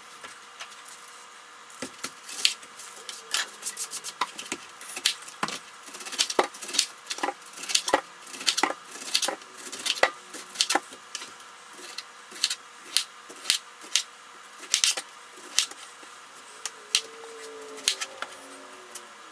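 A chef's knife cutting the rind off a pineapple and knocking on a plastic cutting board, played back at four times speed, so the strokes come as rapid, irregular sharp clicks, several a second, starting about two seconds in.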